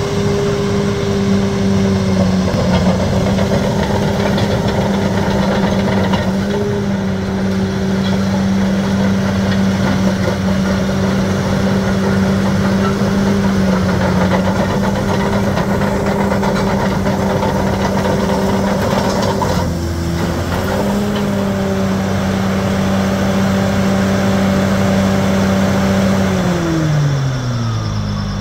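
Caterpillar D6R Series 3 crawler dozer's diesel engine running at a steady high speed as the machine drives. About two-thirds of the way through the engine note dips briefly and recovers, and near the end it falls away smoothly toward idle as the dozer comes to a stop.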